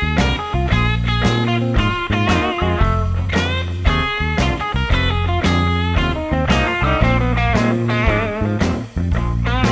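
Background rock music: a guitar playing bending, wavering notes over a bass line and a steady beat.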